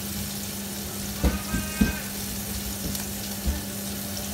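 Bacon sizzling in hot oil in a frying pan, a steady hiss, while it is stirred with a spatula that knocks and scrapes against the pan a few times, starting about a second in.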